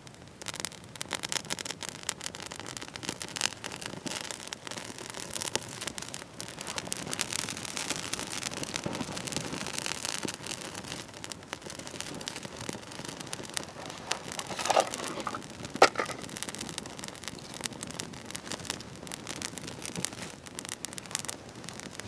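Dry twigs and leaves crackling and snapping as a small kindling fire is built up and catches, a dense run of sharp crackles with one louder snap a little past the middle.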